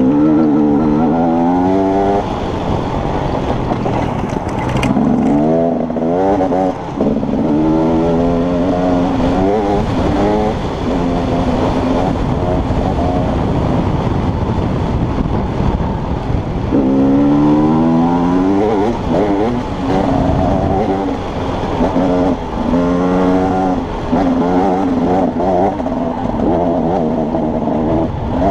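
Husaberg off-road motorcycle engine at race pace, revving up through the gears. Its pitch climbs and drops again at each shift several times, with rough wind and trail noise between the pulls.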